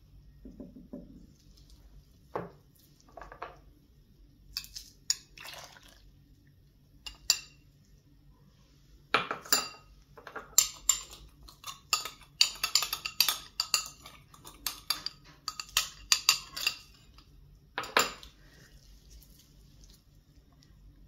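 Kitchen utensils clinking and knocking against dishes: scattered ringing clinks, then a run of quick, repeated clinks through the middle, ending with one strong knock.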